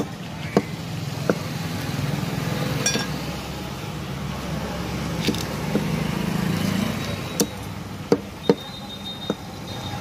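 Heavy butcher's chopper striking quail meat and bone on a wooden chopping block: several sharp knocks at irregular intervals, bunched together in the last few seconds. Under them runs a steady low engine hum.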